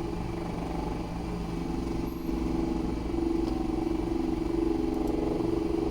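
Commodore dry bilge system's electric pump running with a steady motor hum, primed and drawing water from the bilge through the 4-zone splitter.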